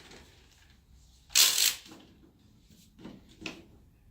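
Handling noises as an upright vacuum cleaner is readied for use: a short scraping rustle about a second and a half in, then two light clicks near the end.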